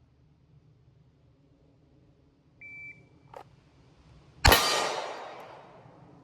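A shot timer beeps once, and about a second and a half later a single 9mm pistol shot cracks loudly and echoes away over about a second and a half.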